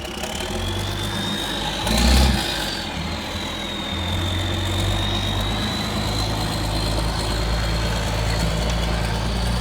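Feed mixer truck (an old box truck carrying a Kuhn TMR mixer) running, with a steady engine drone under a thin high whine that rises briefly and then holds. There is one loud low surge about two seconds in.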